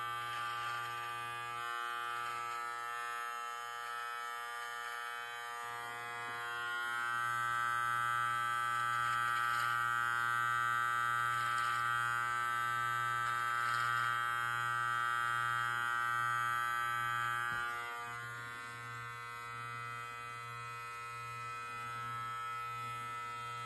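Live Bearded MT-1 cordless beard trimmer running with a steady buzz as it is worked through a beard. The buzz grows louder for about ten seconds in the middle.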